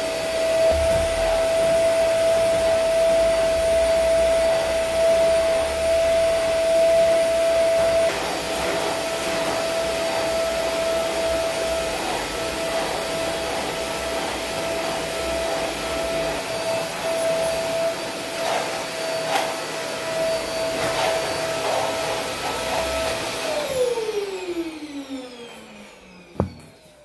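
An electric appliance motor running steadily, a constant whine over a broad rushing noise with a few light knocks. Near the end it is switched off, and the whine glides down in pitch as the motor spins to a stop.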